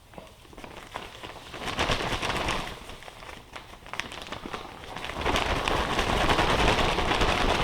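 Sawdust and wood chips pouring out of a dust-collector filter bag, a crackling rush like rain. It comes in two pours: a short one about one and a half seconds in, then a louder, longer one from about five seconds in.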